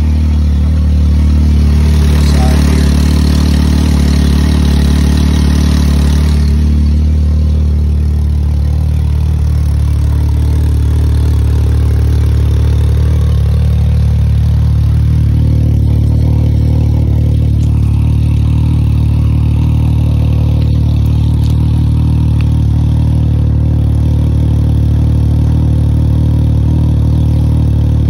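Can-Am Maverick X3's turbocharged three-cylinder engine running at idle through a freshly fitted Joy Designs aftermarket exhaust, just after startup. It runs with extra hiss for the first six seconds or so, then settles to a steadier, slightly lower idle.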